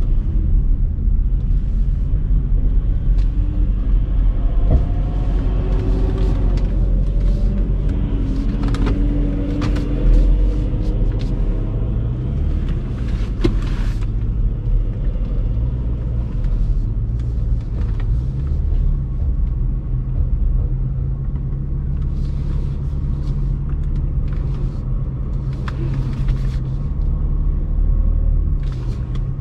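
Steady low rumble inside the cabin of a BMW X5 xDrive50i driving slowly, from its twin-turbo V8 and the tyres, with a few faint clicks.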